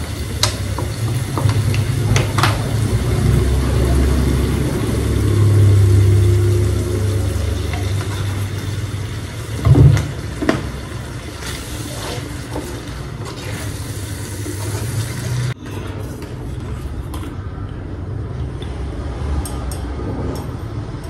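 Stir-frying in a pan over a steady low hum, with spatula knocks and scrapes against the pan and one louder knock about ten seconds in. The hum cuts off suddenly about two-thirds of the way through.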